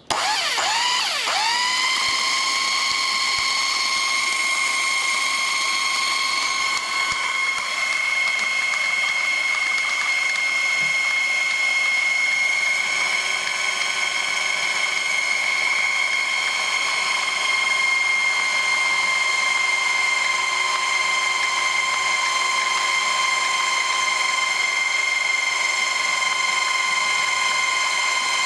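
Power drill spinning up and running steadily to drive a BMW E36 power steering pump on a bench leak test, a steady high whine with the pump pushing fluid through the steering rack. It reaches full speed within about the first two seconds.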